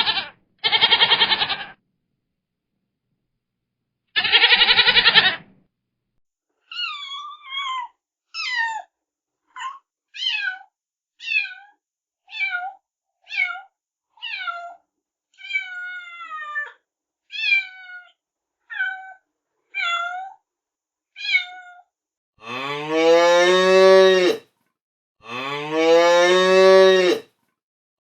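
A run of animal calls one after another: two goat bleats, then about fourteen short, falling cat meows, then two long cow moos.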